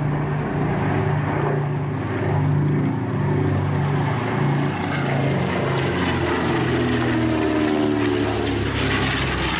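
North American B-25J Mitchell's twin Wright R-2600 fourteen-cylinder radial engines running steadily as the bomber banks overhead. The engine note wavers and glides in pitch as it passes.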